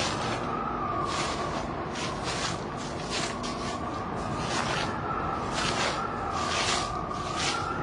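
Wind howling with a slowly wavering whistle, over irregular crunching steps in snow, about two a second.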